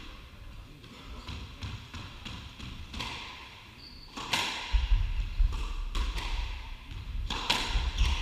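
Squash ball hitting rackets and the court walls: several sharp hits that ring in the court, spaced a second or more apart. A short high squeak comes just before the middle, and from about halfway there is heavy low thudding.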